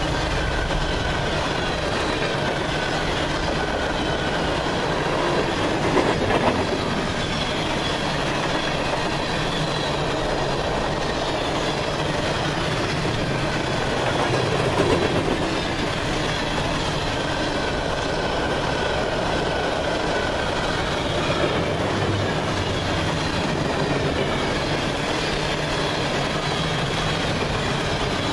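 Empty covered hopper cars of a freight train passing at speed: a steady rumble and clatter of steel wheels on the rails, with faint wheel squeal at times. A louder clatter comes about six seconds in and again about fifteen seconds in.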